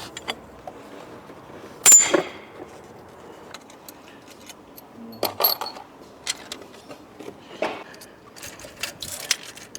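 Metal hand tools and engine parts clinking and clanking while a VVT cam phaser is unbolted and removed from an engine with its timing cover off, with a loud ringing metallic clink about two seconds in and another cluster of clinks around five seconds in.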